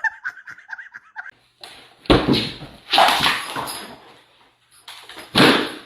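A dog whining in a high, wavering pitch for about a second, then three loud, rough barks, about a second and then two and a half seconds apart.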